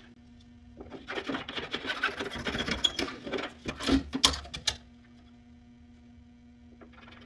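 A metal ruler and marker being handled on a steel door panel: a few seconds of scraping and rattling with a couple of sharp knocks, starting about a second in and stopping just before the five-second mark.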